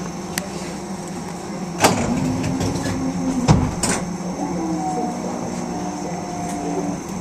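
Üstra Stadtbahn light-rail train standing at an underground platform with its doors open, its equipment humming in steady tones. Two sharp knocks come about two and three and a half seconds in.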